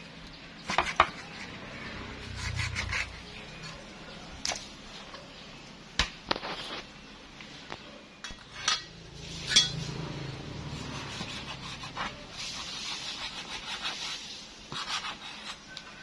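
Meat cleaver chopping through pork ribs on a round wooden chopping board: irregular sharp chops a second or more apart, the loudest about a second in and a little past the middle.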